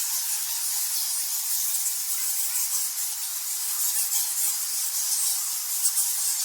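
A colony of bats chittering: a dense, unbroken mass of rapid high-pitched squeaks and clicks.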